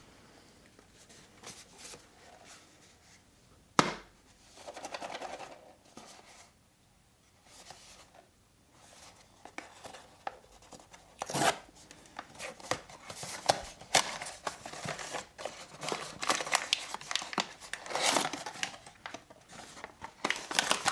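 Blind-box packaging being torn open and handled: crinkling and tearing with sharp clicks, sparse at first and busier through the second half.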